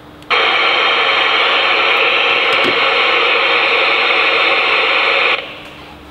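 VHF marine radio (Silva S10) hissing loudly with static through its speaker. The hiss starts abruptly and cuts off suddenly after about five seconds.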